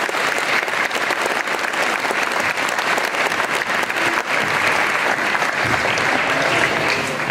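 Audience applauding steadily, many hands clapping in a gym.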